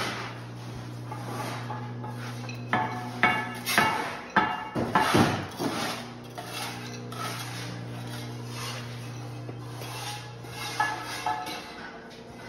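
Bricklaying work: steel trowels and masonry tools scraping and tapping against brick and concrete block, with a run of sharp clinks and knocks a few seconds in and a few more near the end, over a steady low hum.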